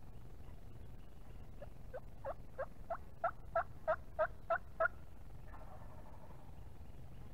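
A run of about ten turkey yelps, evenly spaced about three a second and growing louder toward the end.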